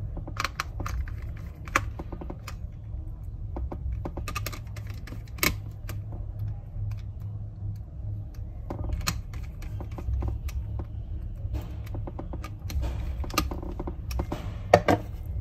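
Irregular small clicks and ticks of a hand screwdriver tightening the small screws that hold a laptop's internal battery, over a steady low hum.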